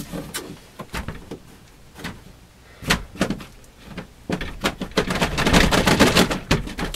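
Handling noise from a door and a dartboard: a few separate knocks, then a quick run of loud knocks and rattles near the end.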